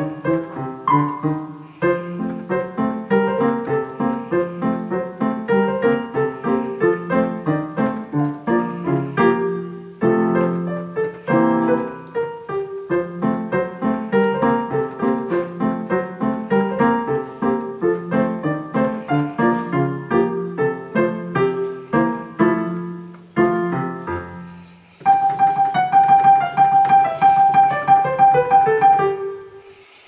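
Digital piano playing a lively ragtime piece with quick, steady notes. It breaks off briefly twice, and near the end gives louder chords over one held high note.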